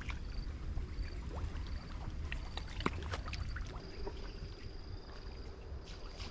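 Wind rumbling on the microphone, with scattered small clicks and splashes. A high, short chirp repeats about twice a second and turns into a steady high tone a little past the middle.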